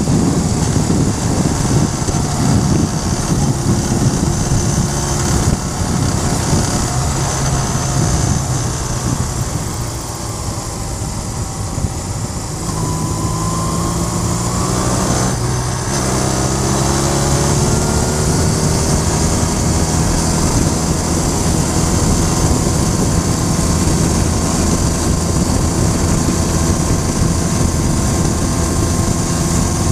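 Cruiser motorcycle engine running under way, with wind rushing past. The engine eases off around ten seconds in, then its pitch climbs, breaks off briefly about sixteen seconds in and climbs again before settling to a steady run.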